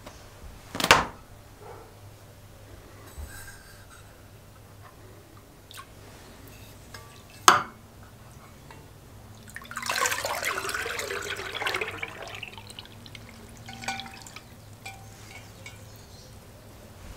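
Two sharp knocks, then a cast iron Dutch oven is drawn up out of a tub of molasses rust-removal solution: the liquid pours and splashes off it for about two seconds, followed by a few drips.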